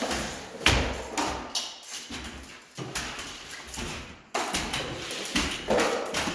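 Metal drywall stilts knocking and scraping on a bare concrete floor as the wearer steps about, in irregular thuds and scuffs.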